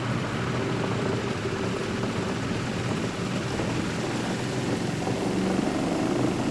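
Good Ideas portable twin-tub washing machine running its wash cycle: a steady motor hum.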